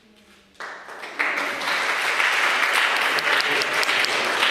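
Congregation applauding: the clapping breaks out about half a second in and swells to a full, steady round of applause about a second in.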